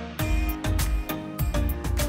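Background music with a steady beat, bass notes and a melody.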